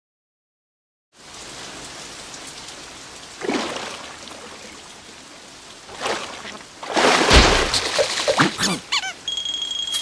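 Cartoon rain falling steadily, starting about a second in, with several louder short drip and splash sounds over it, the loudest about seven seconds in.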